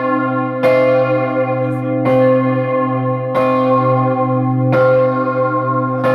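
The campanone, the great bell of the Palazzo dei Vicari tower in Scarperia, swung by hand on a rope and ringing: five clapper strokes about every second and a half, each one ringing on into the next over a steady low hum.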